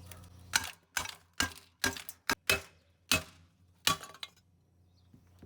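About eight sharp knocks in irregular succession, a few with a brief clinking ring, as the stuck bottom piece of a lawnmower is banged on to work it loose; they stop about four seconds in.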